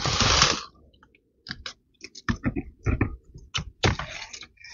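Dry leaves and twigs crackling and snapping in irregular short clicks, with a brief rustle at the start.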